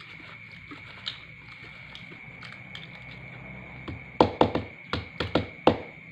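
Eating sounds from a spoon-fed meal of rice and crackers: a few soft clicks, then about two-thirds of the way in a quick, irregular run of about seven loud, sharp clicks and cracks, over a steady high-pitched hum.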